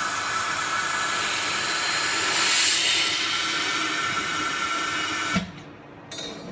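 Techniks induction shrink-fit machine running, a steady hiss with faint high whining tones, which cuts off abruptly about five and a half seconds in with a low thump. A couple of light metallic clinks follow as the unit is handled.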